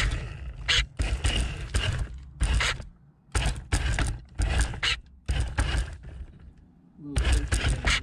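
Radio-controlled car driving in short stop-start bursts over gravel and rock, heard close up from a camera mounted on the car: the tyres crunch and scrape, with knocks and thumps as it bumps over stones, and it pauses briefly about three seconds in and again near six seconds.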